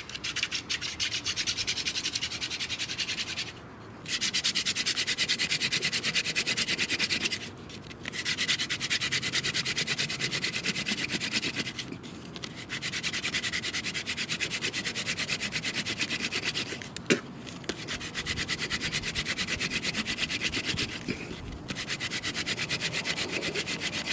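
Sotol hand-drill spindle spun hard between the palms, grinding in the notch of a sotol hearth board with a fast, even rasp. It comes in about six runs of a few seconds each, broken by brief pauses as the hands go back up the spindle, with one sharp knock about two-thirds through. The drilling is grinding out the hot dust that forms the ember.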